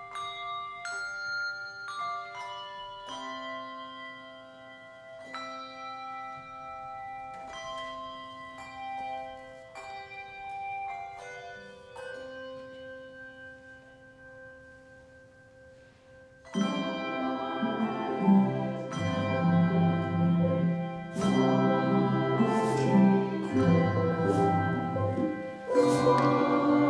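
Handbell choir ringing slow, sparse chords, each note struck and left to ring out. About 16 seconds in, the music suddenly swells into a much louder, fuller passage with deep bass notes.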